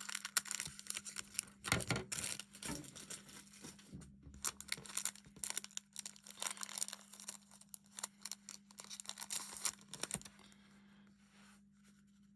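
Plastic wrapper of a baseball card rack pack being torn open and crinkled: dense crackling and rustling that stops about ten seconds in. A faint steady hum runs underneath.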